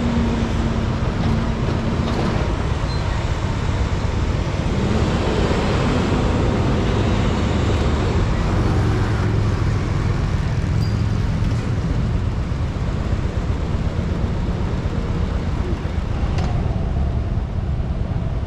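Vehicle convoy of army trucks and police motorcycles passing through an intersection: steady low engine hum and traffic noise.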